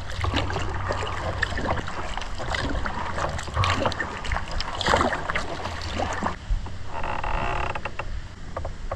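A kayak being paddled in shallow creek water: paddle strokes splash, with many short knocks against the hull, and a brief buzzy rasp about seven seconds in.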